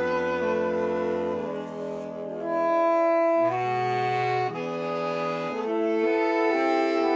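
A saxophone quartet of four different saxophones plays sustained chords together, the harmony shifting to new held notes about every second.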